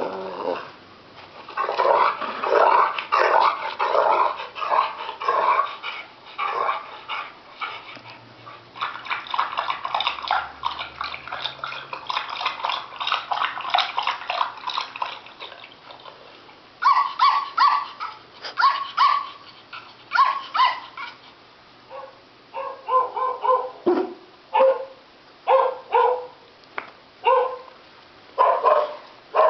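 Dogs barking and yipping, dense runs of quick, short yelps at first, then more widely spaced single barks in the second half.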